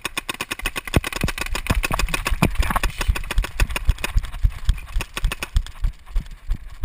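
Quick running footfalls on sandy ground, about three or four heavy thumps a second, with a clatter of gear and the paintball marker knocking between strides.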